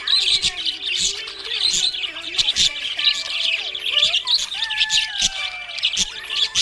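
Budgerigars chirping and twittering rapidly and without pause, several birds overlapping, with a few longer whistled glides among the short chirps.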